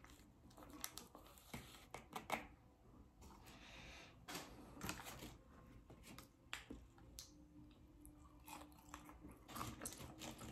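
Faint chewing of food, with irregular small clicks and soft crackles from the mouth.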